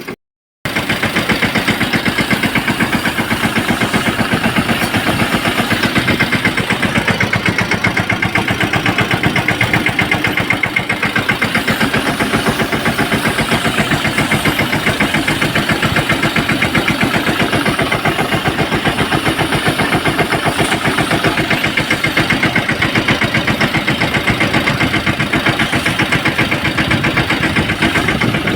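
Tractor engine running steadily with a fast, even firing beat, powering the pesticide spray pump.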